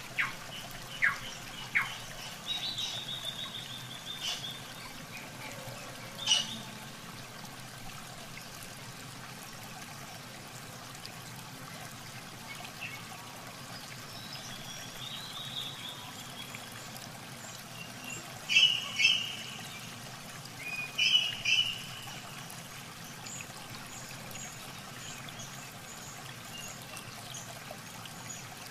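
Shallow muddy water trickling and splashing as it is worked by hand, with birds chirping now and then; a few sharp ticks come in the first two seconds, and the loudest chirps come about two-thirds of the way through.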